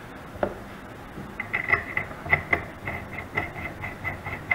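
Metal retaining collar being threaded by hand onto the lathe's headstock spindle: one knock about half a second in, then from about a second and a half in a quick, irregular run of small metallic clicks and squeaky chirps as the collar turns on the thread.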